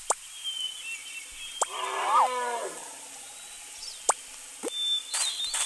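Cartoon sound effects: one drawn-out animal call that rises and then falls in pitch, a bit under two seconds in, among several short sharp pops, with a brief rush of noise near the end.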